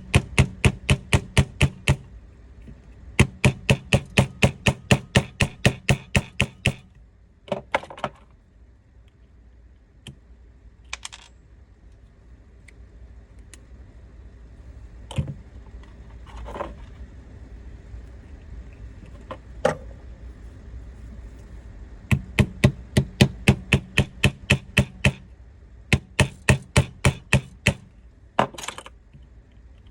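Hammer tapping a bit, used as a punch, against a roll pin to drive it out of an airsoft rifle's lower receiver. It comes in quick runs of sharp taps, about five a second, with pauses and a few single knocks between the runs.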